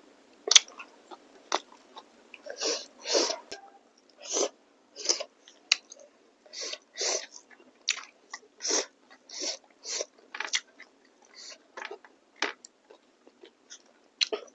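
A person chewing food with the mouth open to the sound: a run of short chews and mouth noises, roughly two a second, with a sharp click about half a second in.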